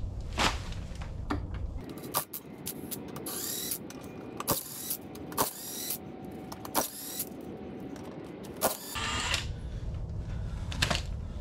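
Scattered metal clanks and knocks as a rear wheel is worked off a jacked-up Ferris zero-turn mower, with a dense run of clinks about two to four seconds in.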